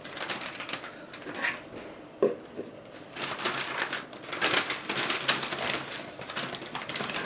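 Irregular crinkling and crunching of plastic packaging as a package of ground beef is handled and opened, with a brief squeak about two seconds in.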